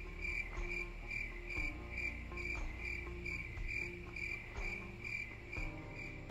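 Cricket chirping as a sound effect, an even high chirp repeating about two to three times a second, standing in for an awkward silence where an answer was expected.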